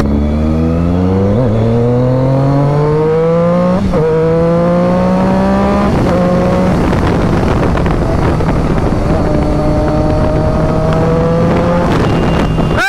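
Triumph Daytona 675's inline three-cylinder engine pulling hard through the gears. The revs climb and briefly break for upshifts about 1.5, 4 and 6 seconds in, then hold high and keep rising slowly at speed, with wind rush across the microphone.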